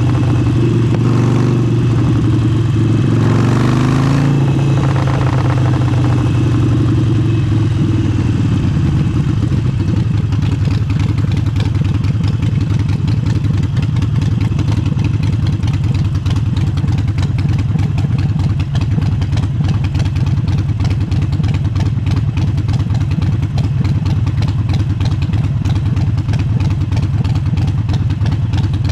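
Harley-Davidson Forty-Eight's air-cooled V-twin running through an aftermarket exhaust. The revs rise and fall over the first few seconds, then the engine settles into a steady, even note for the rest.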